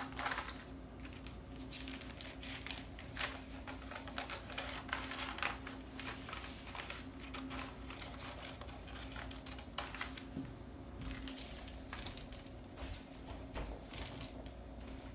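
Small scissors snipping through pattern paper, with the paper rustling and crinkling as it is handled, in a scattered run of short sharp snips and crackles.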